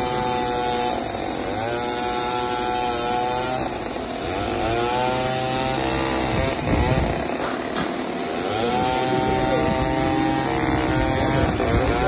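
A portable band sawmill's engine running under cutting load as the band blade goes through a log. Its pitch rises and then holds steady several times, dipping between runs.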